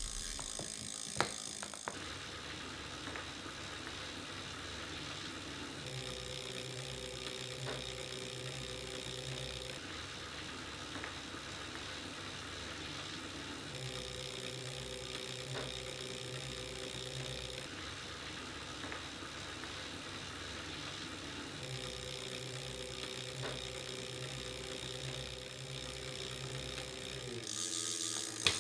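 Wahoo KICKR direct-drive smart trainers (2018 and 2017 models) being pedalled steadily at about 20 mph, their flywheels whirring. The sound switches about every four seconds between an even whooshing hiss and a steadier hum of several tones, as the two trainers are heard in turn. There is a sharp click about a second in.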